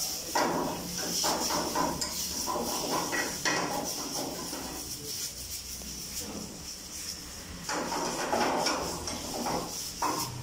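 Metal ladle scraping and clattering against a steel frying pan as spaghetti is stirred and tossed, in irregular bursts, over a steady high hiss.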